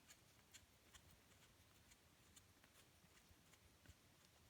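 Near silence, with a few faint scattered clicks of the oil drain plug being threaded into the engine case by hand.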